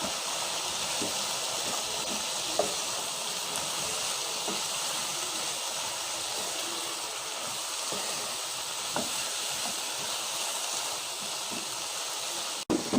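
Chicken and diced papaya frying in a pan, a steady sizzling hiss with a few faint knocks of the stirring spoon.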